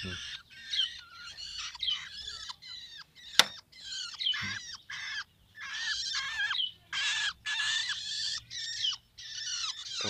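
Young long-tailed shrikes (cendet) giving a rapid run of harsh, raspy calls while being handled. A single sharp click sounds a little over three seconds in.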